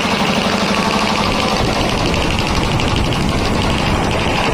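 ELGI two-cylinder V-type reciprocating air compressor pump running steadily, with a rapid, even beat.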